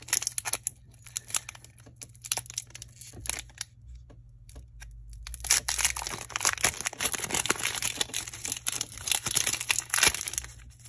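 Foil wrapper of a Pokémon booster pack crinkling and tearing as it is opened by hand: irregular sharp crackles, sparser in the first half and busiest in the second.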